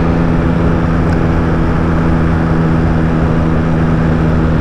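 Motorcycle engine running steadily while riding, a constant engine hum over a steady rush of wind and road noise.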